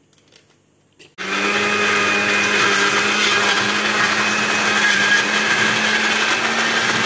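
Electric countertop blender with a plastic jar, switched on about a second in and then running steadily, a whirring with a steady hum beneath it, as it blends chopped ingredients. A few small plastic clicks come before it starts.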